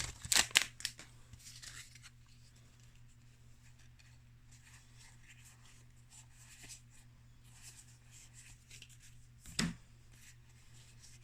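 Trading cards being handled and slid past one another: a few soft clicks and rustles in the first two seconds, faint rustles later, and one sharper card snap near the end, over a faint steady electrical hum.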